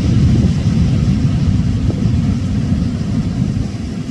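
Loud, fluttering low rumble of wind buffeting the microphone.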